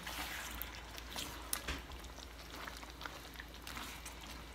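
A spatula stirring chunks of chicken and bottle gourd through thick curry in a wok over a low sizzle, with soft squelching and a few light clicks against the pan in the first couple of seconds.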